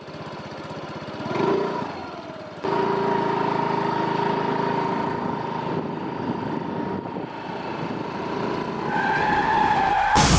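Motor scooter engine running as it is ridden along, with a steady whine. Near the end a tyre squeal, then a sudden loud crash impact as the scooter goes down.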